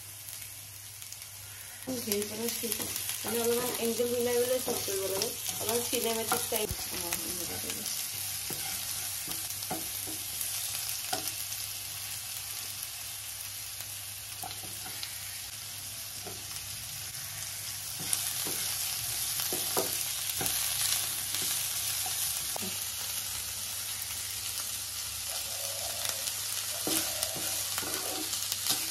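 Chopped garlic and onions sizzling in oil in a nonstick frying pan, stirred with a wooden spatula that knocks and scrapes against the pan. The sizzle gets louder about two seconds in and again a little past the middle.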